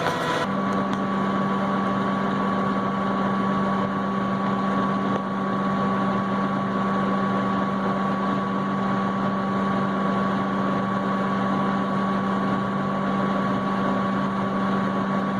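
Tractor engine running at a steady speed, a constant low drone with a fainter higher hum, heard from inside the tractor cab.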